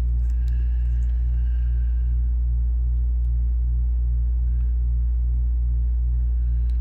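Steady low electrical hum with a throb about three times a second, and a couple of faint clicks late on.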